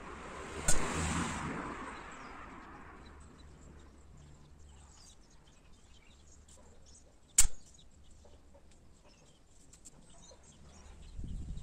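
Two shots from a Gamo Coyote PCP air rifle, each a single sharp crack, about six and a half seconds apart. Under the first shot there is a rushing background noise that fades away over the next few seconds.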